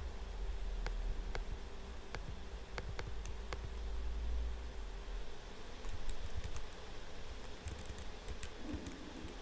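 Scattered, irregular typing on a computer keyboard over a low steady hum.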